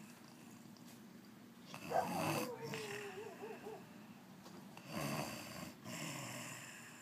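A woman snoring in her sleep: two snores about three seconds apart, the first with a whistle-like tone that falls and then wavers.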